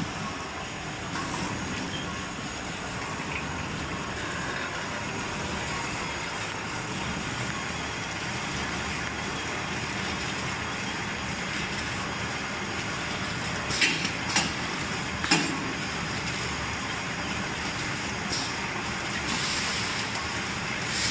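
Surgical mask packaging machine running: a steady mechanical whir and rattle, with a few sharp clacks about two-thirds through and a brief hiss near the end.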